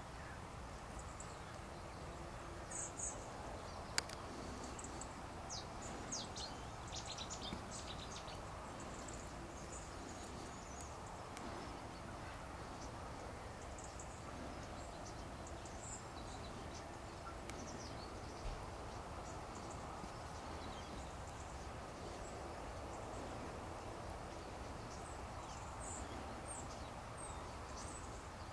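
Outdoor ambience: a steady low background hiss and hum, with faint, scattered high chirps of small birds, busiest a few seconds in and again near the end. A single sharp click about four seconds in.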